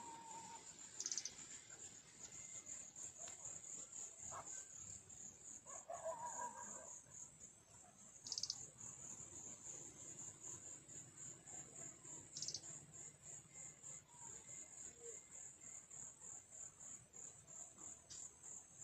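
Faint, steady, high-pitched pulsing insect trill, with a few short bird calls and brief chirps over it.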